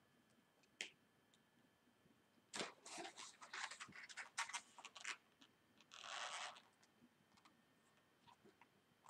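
Faint handling sounds of a latex balloon sculpture and a marker pen: a single click about a second in, then a run of rubbing and squeaking rubber for a couple of seconds, and a short scratchy stroke of the marker on the balloon around six seconds in.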